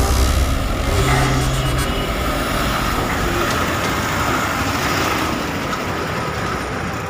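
Engine of a loaded light goods truck running as it drives slowly past at close range on a steel ferry deck.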